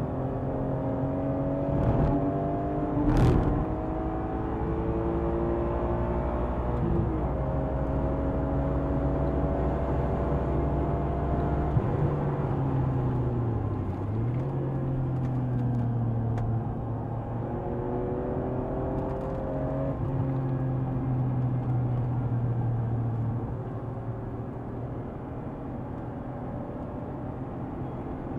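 BMW M3 E46's inline-six running hard at track pace. Its pitch climbs slowly under acceleration and drops sharply several times as revs fall, with a sharp knock about three seconds in.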